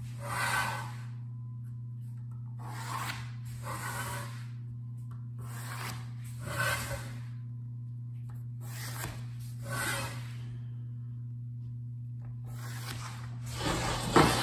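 Pencil scratching marking lines on a thin luan plywood panel along a metal square: a series of separate strokes, roughly one every second or two, over a steady low hum. Near the end the thin panel rattles and knocks as it is lifted off the table.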